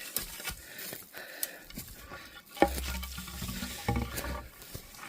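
Footsteps crunching and rustling on a forest trail, with many small clicks, and a low rumble from about two and a half seconds in until past four seconds.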